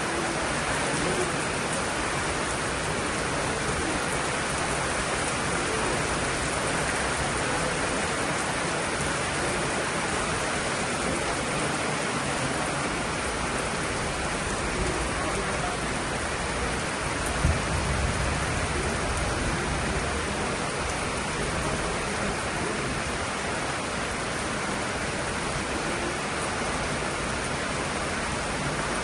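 Steady rain falling, an even hiss of rainfall, with a brief low rumble a little past the middle.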